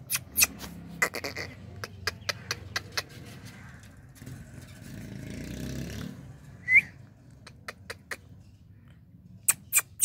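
Scattered sharp clicks, and about two-thirds of the way through one short squeak from an Indian ringneck parakeet, the loudest sound.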